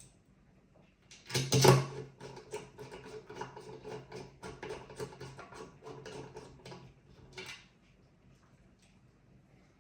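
Small hardware being handled: a louder clatter about a second in, then a quick run of small clicks and rattles for about six seconds, stopping near the end.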